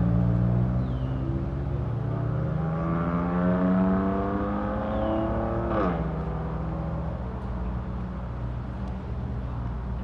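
Car engine accelerating hard, its pitch climbing steadily for about five seconds, then dropping off abruptly about six seconds in. A steadier engine drone carries on underneath and after it.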